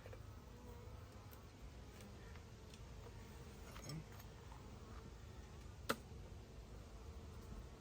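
Honey bees buzzing faintly around an opened hive, a thin wavering hum. A few light ticks, and one sharp click about six seconds in.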